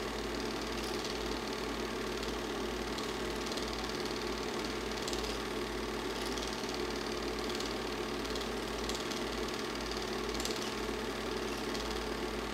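Super 8 film projector running, a steady mechanical whir and clatter from its motor and film transport.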